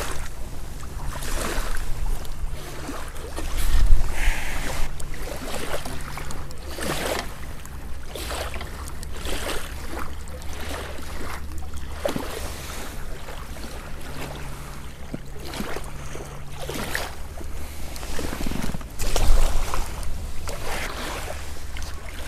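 Wind rumbling on the microphone at a riverbank, with water lapping and a run of small knocks and rustles. Two louder thumps come about four seconds in and again near the end.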